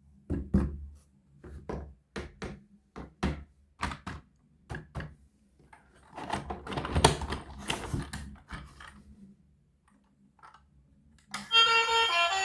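A series of sharp knocks and clicks, often in pairs, then a denser, rattling clatter for a few seconds. A pause follows, and music starts about a second before the end.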